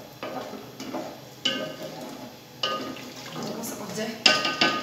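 A ladle stirring chickpea curry in an aluminium cooking pot, knocking and scraping against the metal about once a second with short ringing clinks. The two loudest clinks come close together near the end.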